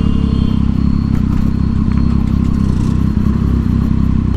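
Triumph Street Triple 675's inline three-cylinder engine running steadily through a loud Yoshimura aftermarket exhaust while the bike is ridden, without any sharp revving.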